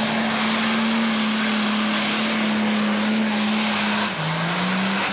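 Pro Stock pulling tractor's turbocharged diesel engine running loud at steady high revs. About four seconds in the pitch drops, then climbs again.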